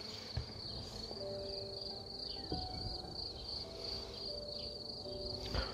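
A cricket singing a steady, high-pitched trill in the grass. Honeybees hum faintly as they fly around the open hive, and there are a few light wooden knocks as the hive frames and divider board are handled.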